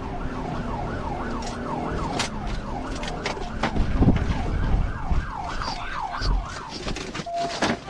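Police car siren on a fast yelp, its pitch sweeping up and down about three times a second, over the engine and road rumble of a car at pursuit speed. The rumble swells about halfway through.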